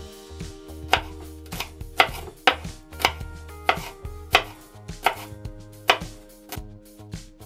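Kitchen knife chopping garlic cloves on a cutting board, a steady knock of the blade on the board about every half second.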